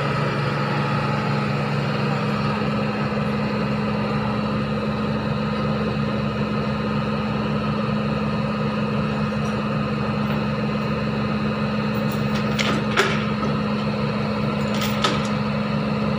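Tracked excavator's diesel engine idling steadily, with a couple of sharp knocks about two seconds apart in the last third.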